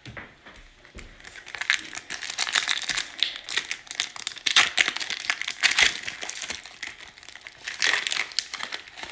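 Foil wrapper of a basketball trading-card pack crinkling as it is torn open by hand. The crackling comes and goes, loudest about halfway through and again near the end.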